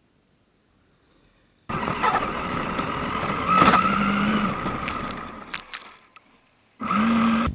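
Tamiya DF-03Ra electric RC rally car heard from an on-board camera while driving through snow: a steady motor and drivetrain whine under a rush of snow and wind noise. It starts suddenly about two seconds in, fades out around six seconds, then cuts back in loudly near the end.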